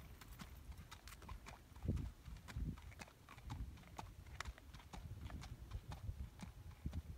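Hoofbeats of a ridden horse walking on a dirt track, an uneven run of sharp clops about two or three a second, with a couple of louder low thuds about two seconds in.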